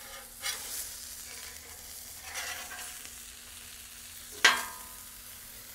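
Catfish fillet sizzling on a very hot steel Blackstone griddle, a steady frying hiss with a few soft scrapes. About three-quarters of the way through, a single sharp ringing clank of the metal spatula on the griddle top.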